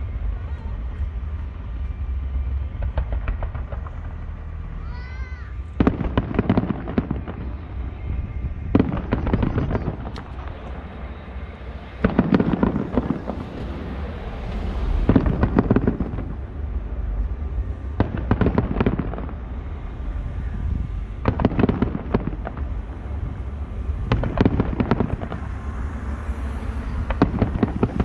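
Distant aerial fireworks shells bursting in clusters of bangs and crackles, a new cluster about every three seconds, over a steady low rumble.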